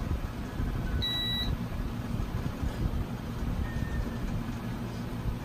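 Epax X1 resin 3D printer giving a single short, high electronic beep about a second in as it powers up, over a steady low background rumble.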